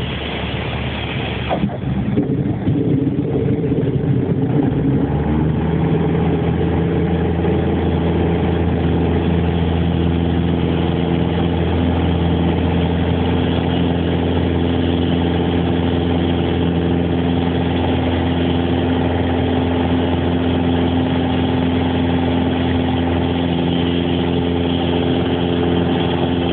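Piper PA-28 Warrior's four-cylinder Lycoming engine heard from inside the cabin. After a sharp knock about two seconds in, the engine note builds over a few seconds as power comes up for the takeoff of a touch and go, then runs steadily at full power.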